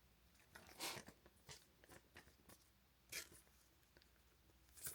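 Near silence with a few faint, brief rustles and taps of trading cards and penny sleeves being handled.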